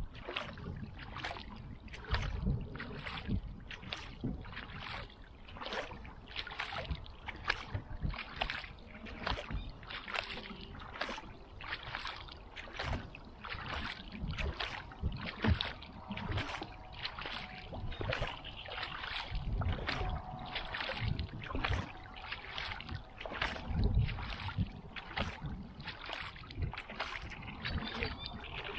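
Kayak paddle strokes in a steady rhythm, about three every two seconds, each blade splashing into and pulling through calm lake water.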